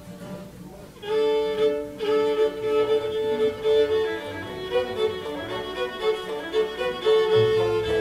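Fiddle starting an old-time fiddle tune about a second in, bowing a quick run of notes. Low bass notes come in near the end.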